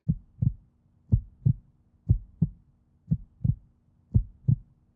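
Heartbeat sound effect: paired lub-dub thumps repeating steadily about once a second, with a faint steady hum underneath.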